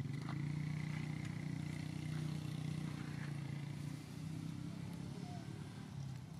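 Steady low engine hum, even in pitch throughout.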